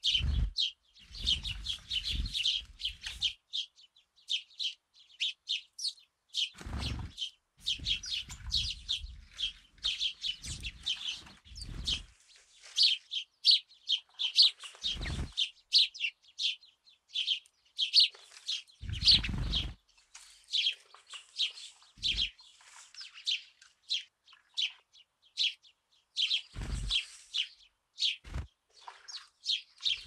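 A flock of house sparrows chirping non-stop, many short rapid chirps overlapping, with several low thuds and rumbles in between.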